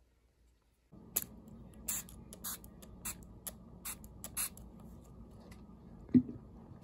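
Small pump spray bottle of water spritzing in about nine quick, short puffs of hissing mist over three and a half seconds. Near the end comes a single loud, dull thump.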